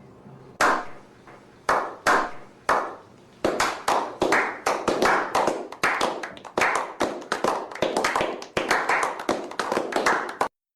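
Hand claps: a few slow, spaced claps that soon build into a quick run of about three claps a second, then stop abruptly near the end.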